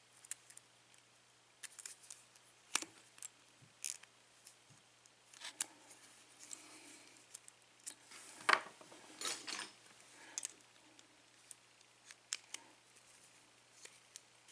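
Irregular small metal clicks and scrapes as the retaining clip is pried off the back of an ABUS euro cylinder's plug, busiest about eight to ten seconds in.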